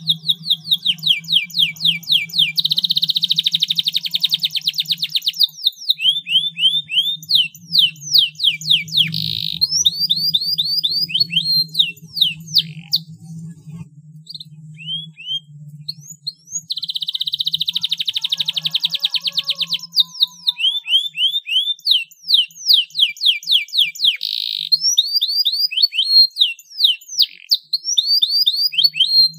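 Domestic canary singing a long song: fast rolling trills and runs of quick, downward-sweeping notes, with a short break near the middle.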